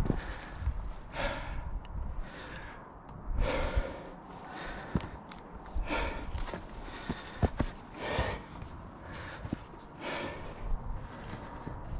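A climber's heavy breathing, loud exhalations every two seconds or so, with a few sharp knocks and scrapes of hands and boots on rock.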